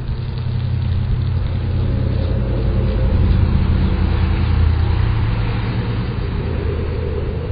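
A motor vehicle's engine running with a steady low hum, growing louder toward the middle and fading again near the end.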